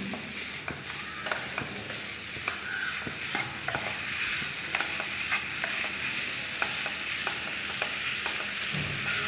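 A spatula stirring and scraping grated coconut and sugar around a frying pan, with irregular clicks against the pan over a steady low sizzle as the coconut is sautéed.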